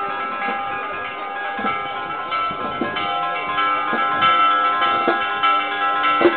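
Church bells ringing, struck about once a second, each stroke ringing on under the next.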